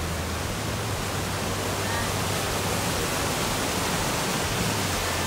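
Waterfall rushing steadily as white water pours over and between boulders.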